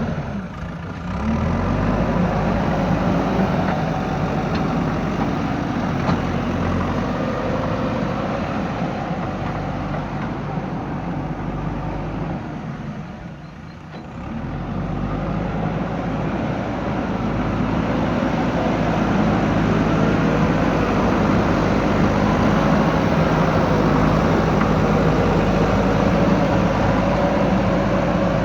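Diesel engine of heavy earthmoving machinery running steadily under work. The sound dips briefly about a second in and again around the middle, then comes back.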